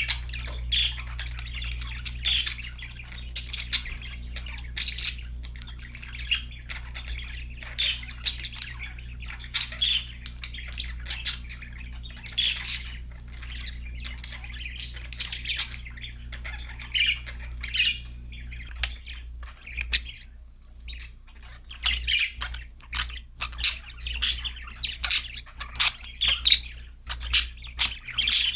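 Several budgerigars chirping and squawking in quick, irregular calls, getting busier and louder in the last third, over a steady low hum.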